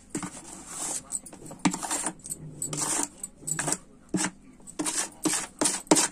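A spoon scraping and clinking against a dish in a run of short, irregular strokes as ground pickle masala is scraped off it onto chopped mango.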